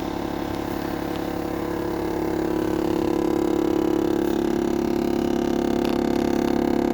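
Loud rattling vibration from under the center console of a 2022 GMC Yukon SLT with the 3.0-litre Duramax diesel: a steady buzzing drone with a fast pulse, growing a little louder about two to three seconds in. Its cause is unknown to the owner.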